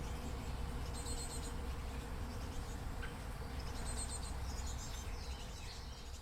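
Small birds chirping in short high trills, clearest about a second in and again about four seconds in, over a steady low hum and rumbling background noise.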